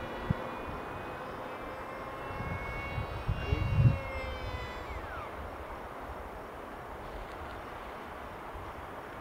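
Electric motor and pusher propeller of a ParkZone Stryker F-27Q RC flying wing, whining steadily as it flies overhead, its pitch sliding down briefly about five seconds in. A cluster of low thumps about three to four seconds in is the loudest part.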